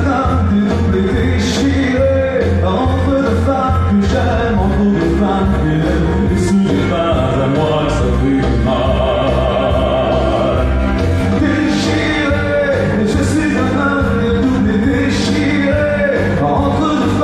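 A man singing live into a microphone over loud, continuous music accompaniment, his held notes wavering with vibrato.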